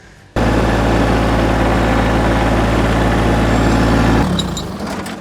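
Massey Ferguson GC1725 sub-compact tractor's diesel engine running steadily. It cuts in abruptly just after the start and fades away near the end.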